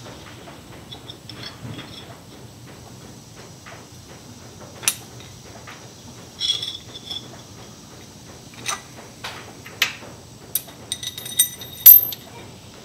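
Small metal hardware being handled: scattered clicks and clinks of the washers, bushings and bolt of a new sway bar end link kit, with a few brief ringing metallic clinks, the loudest near the end.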